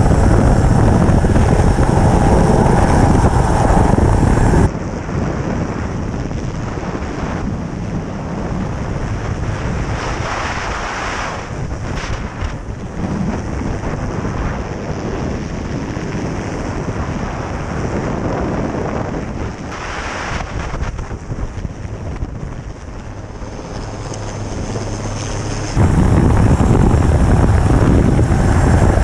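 Rescue helicopter's engines and rotor running loud from the open cabin door. About five seconds in it cuts abruptly to wind buffeting the microphone and heavy seas around a listing cargo ship, with occasional gusts. Near the end it cuts back to the helicopter's loud running.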